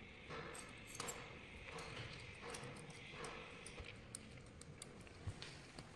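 Faint, irregular light clicks and taps of hand tools and small metal parts as an electric motor is taken apart to remove its rotor from the stator.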